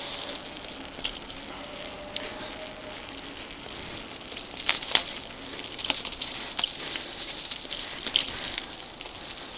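Mountain bike tyres rolling fast over dry fallen leaves and packed dirt, a steady crackling hiss with many small ticks, and two sharp knocks about five seconds in.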